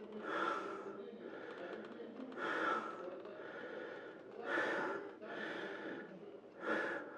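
A person breathing heavily and loudly, with one strong breath about every two seconds, four in all.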